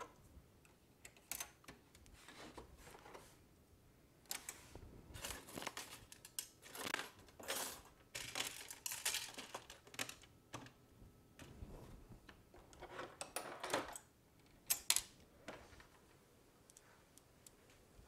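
Hands handling the parts of an opened PS4 console: irregular rustling and crinkling of a thin plastic sheet, with scattered small clicks and taps and two sharp clicks a little before the end.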